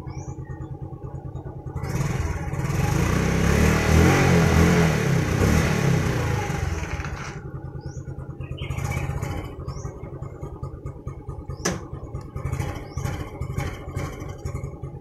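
Suzuki Smash's single-cylinder four-stroke engine running at a steady idle. About two seconds in it is revved on the throttle for about five seconds, then drops back to idle, and it gets shorter throttle blips near the end, with one sharp click just before them. The owner says this engine dies on its own unless warmed up for 10 to 15 minutes, even with a cleaned carburettor and air filter and a new spark plug.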